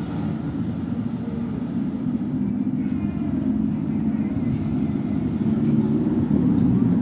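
A motor vehicle's engine running with a steady low rumble, growing gradually louder.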